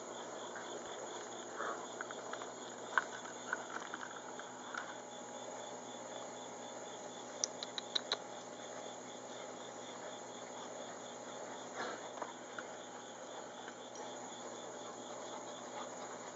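Steady chorus of insects chirring in an even, pulsing rhythm. A few faint high squeaks sound in the first five seconds, and a short run of sharp clicks comes about eight seconds in.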